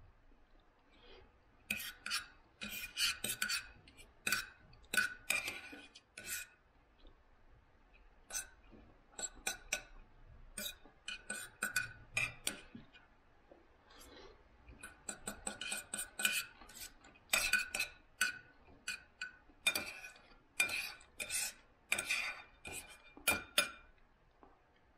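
Knife and fork clinking and scraping on a plate while eating: a string of short, irregular clinks with a faint ring, coming in clusters.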